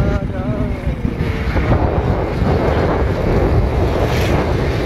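Heavy wind buffeting the microphone while riding along a road on a motorcycle, with a brief falling tone in the first second and a half.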